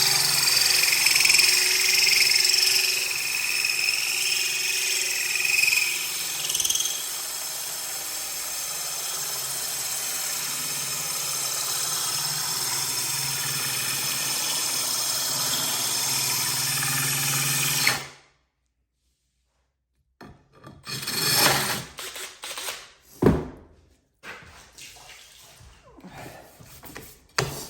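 Power drill running a cheap hole-saw bit through a 10 mm porcelain tile kept wet with a sponge: a steady grinding whine that cuts off suddenly about eighteen seconds in. After a short silence come a few scattered knocks and clinks.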